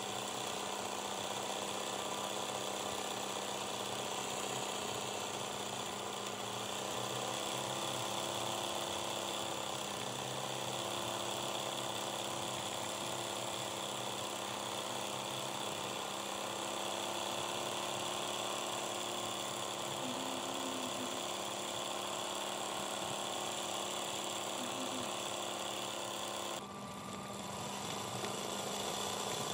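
Sewing machine running steadily at speed for free-hand embroidery, its needle stitching fill through fabric held in a hoop. The sound briefly dips and changes in tone near the end.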